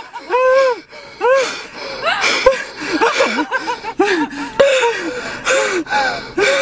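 Several people laughing hard, a run of short high-pitched laughs with wheezing and gasping for breath between them.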